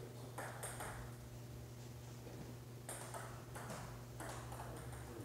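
Table tennis rally: a celluloid ball clicking quickly back and forth off paddles and the table, a few hits in the first second, a pause, then another run of hits in the second half. A steady low hum runs underneath.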